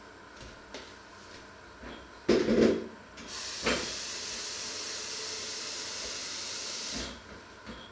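A loud knock, then a steady high hiss lasting about four seconds that starts and stops abruptly.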